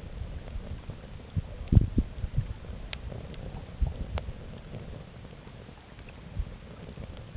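Wood campfire crackling, with a few sharp pops, over an irregular low rumble and a low thump about two seconds in.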